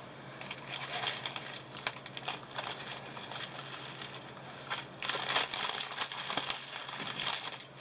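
Small plastic bags of craft gems crinkling and rustling as they are handled and sorted through. The crinkling gets louder from about five seconds in.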